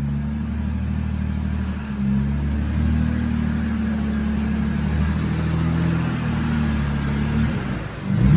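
Car engine idling steadily, with a low, even hum; it dips briefly near the end.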